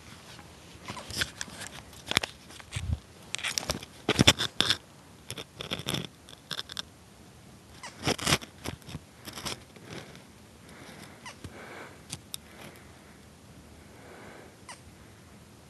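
A camera being set down and adjusted on stony gravel: a cluster of scrapes, crunches and sharp knocks from handling against the ground, loudest about four seconds in. After about nine seconds the handling stops, leaving only faint outdoor background.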